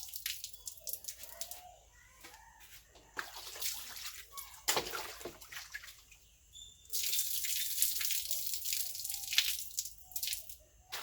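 Water splashing in spells as raw chicken pieces are washed, with the longest stretch of splashing in the second half.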